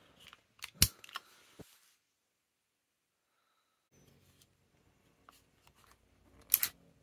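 Sharp metallic clicks and clacks of a stainless Kimber Ultra Carry II .45 ACP 1911 pistol being worked by hand, with one loud click about a second in and a quick cluster of clicks near the end. A stretch of dead silence lies in the middle.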